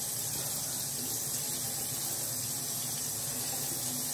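Bathroom sink faucet running steadily, its stream of water splashing into the basin with an even hiss.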